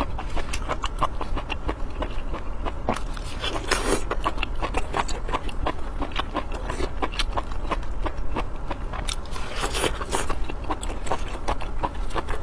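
Close-miked eating: a person chewing and biting with a quick, continuous run of wet mouth clicks and smacks, with two longer noisy stretches about three and nine seconds in. A steady low hum lies underneath.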